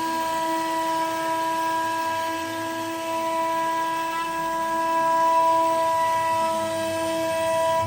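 Sienci Labs AltMill CNC router's spindle running at 20,000 RPM with a 22 mm surfacing bit, a steady whine as it cuts a raster surfacing pass across the machine's bed.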